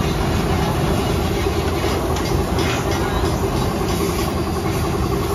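Air compressor running steadily with a low rumble, feeding the spray-paint gun. A few light clicks sound around the middle.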